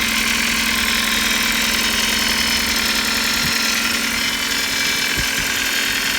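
Ford Focus 3 1.6 Duratec Ti-VCT Sigma four-cylinder petrol engine idling under the bonnet, with a steady, high-pitched whistle/squeak that has a metallic tint. The squeak comes from somewhere in the engine bay and gets louder when the steering is turned to full lock.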